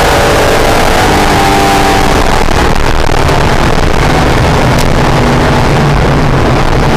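Acura NSX V6 engine running on a race track, heard from inside the cabin over heavy wind and road noise. The engine note holds steady at first, turns rougher around the middle, then settles at a lower pitch in the second half.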